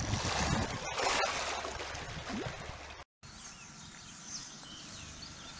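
A rushing, splashing sound effect under the channel logo that fades and cuts off about three seconds in. Then quiet outdoor ambience: a faint steady hiss with a few brief high chirps.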